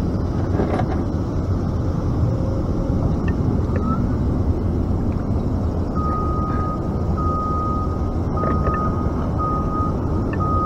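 Steady low rumbling noise throughout, with a high electronic beep starting about six seconds in and repeating roughly once a second.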